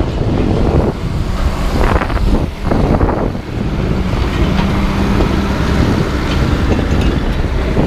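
Large diesel engine of scrapyard machinery running steadily, with wind buffeting the microphone.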